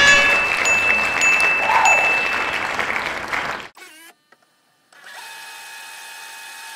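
Air horn sound effect: a held multi-note blast that fades into a noisy rush and cuts off about three and a half seconds in. After a short gap, a soft steady electronic tone comes in.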